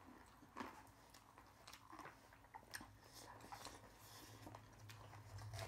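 Faint chewing and crunching of chatpate, a spicy puffed-rice snack, heard as scattered soft crunches and clicks. A low hum grows louder near the end.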